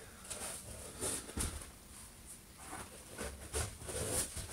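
Clothes and shoes being handled: irregular fabric rustling with a few soft knocks.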